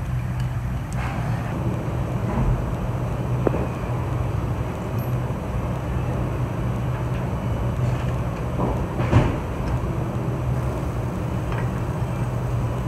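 A steady low hum runs throughout, with a few faint metallic clicks and taps from hand tools working the bolts of a steel bearing-housing end cover, and one sharper clank about nine seconds in.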